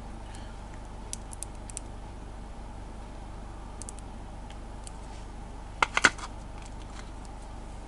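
Light plastic clicks from a squeezable edible gel pen being handled and squeezed onto a small candy, then a quick cluster of louder clacks about six seconds in as the plastic pen is set down on a wooden board. A faint steady hum lies underneath.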